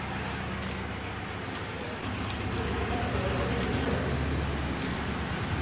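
Green chillies being sliced on a boti, a fixed upright curved kitchen blade, giving several short crisp cuts spaced irregularly about once a second. A steady low hum runs underneath.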